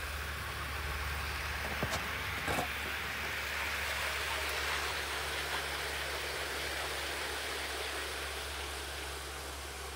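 OO gauge model HST running along the garden track, its wheels and motor giving a steady rushing noise that swells as the train passes close and then slowly fades. A few short clicks near two seconds in.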